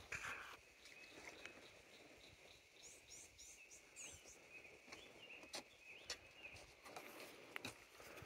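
Faint outdoor ambience by a woodland pond: a steady, high insect drone, a few quick bird chirps about three seconds in, and scattered light clicks and rustles.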